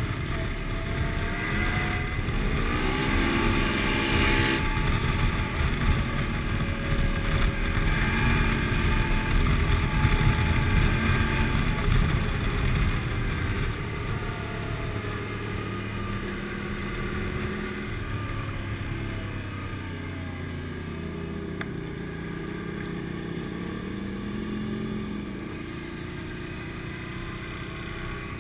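ATV engine running under way, its pitch rising and falling several times with the throttle, over a steady rush of road noise; it runs quieter in the second half as the ride slows.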